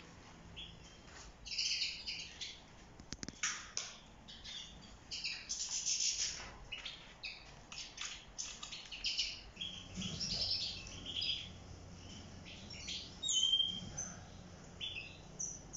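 European goldfinches chirping and twittering: a scatter of short, high calls throughout, with one clear whistled note near the end.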